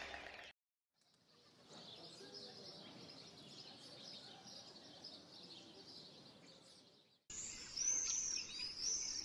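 Outdoor ambience of birds chirping and calling, faint at first and louder from about seven seconds in, with repeated arching high calls. A strummed guitar piece cuts off in the first half second.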